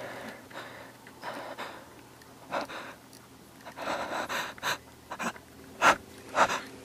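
A person breathing heavily close to the microphone, in short, irregular breaths, with a few brief sharp noises between them.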